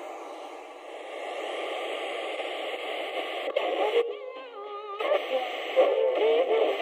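Osian portable radio hissing with static as its tuning dial is turned. From about three and a half seconds in, the static breaks into wavering whistles and warbling snatches of a station's voice or music.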